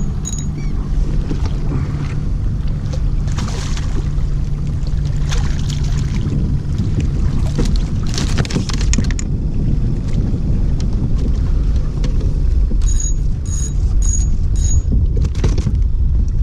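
Wind buffeting the microphone on a kayak on open water, with water sloshing against the hull. Four short high beeps come near the end.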